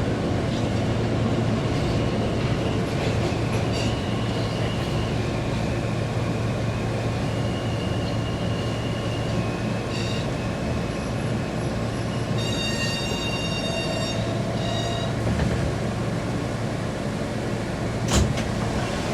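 R160A subway train running on the tracks: a steady low rumble with thin, high wheel squeals coming and going, a cluster of high tones about two-thirds of the way through, and a sharp click near the end.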